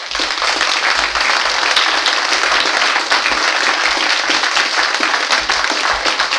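Live audience applauding loudly, breaking out all at once at the close of a recited poem and going on steadily.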